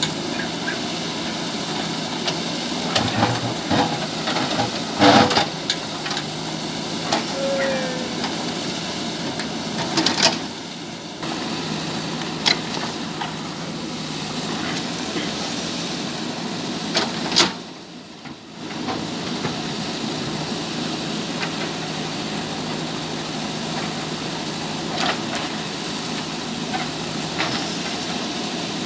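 JCB 3DX backhoe loader's diesel engine running steadily while it digs a trench, with occasional sharp knocks and clanks from the working digger.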